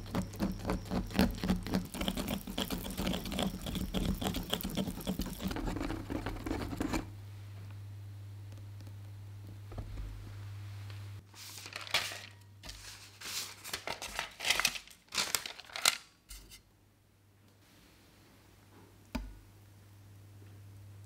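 Whisk stirring dry cocoa powder and flour in a glass bowl: rapid, even scratchy strokes that stop about seven seconds in. Later come a few short scrapes and knocks and one light tap, over a low steady hum.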